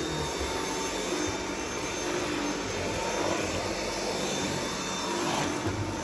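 Dyson V7 cordless stick vacuum running steadily, a steady rush of air with a thin motor whine, as its cleaner head is pushed over rug and carpet.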